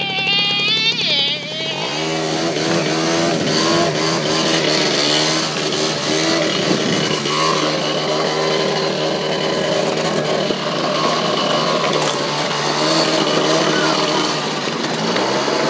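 Small electric ride-on bike motor whining, its pitch wavering up and down with speed, over steady wind and rumble from riding across grass and gravel.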